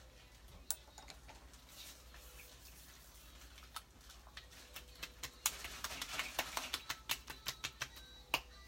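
Hands patting liquid toner onto the face: a quick run of light, wet slaps on the skin in the second half, with a few single taps before it.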